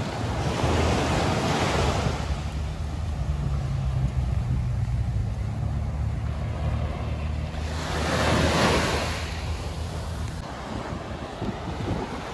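Small waves washing up a sandy shore. Two surges swell and fade about seven seconds apart, over a steady low rumble.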